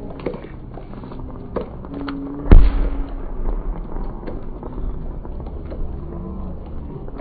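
Fireworks display: one loud aerial shell burst about two and a half seconds in, ringing out afterwards, with a few lighter pops before it and faint crowd chatter underneath.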